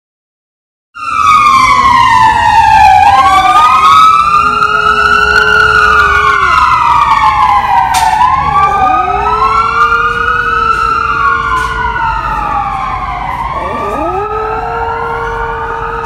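Yorkshire terrier howling: long wailing howls that rise and fall in pitch and overlap one another. They start about a second in.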